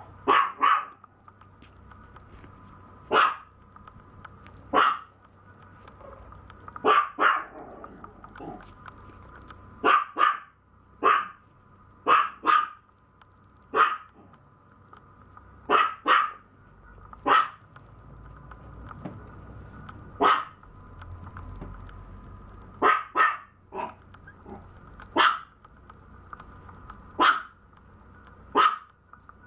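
Very young Maltese puppy giving short, sharp cries every second or two, some in quick pairs, over a faint steady high hum.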